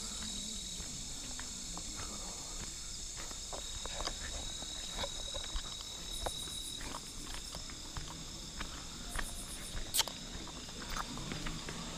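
Night insects, crickets among them, singing in steady high-pitched trills, with irregular footsteps and a sharp click about ten seconds in.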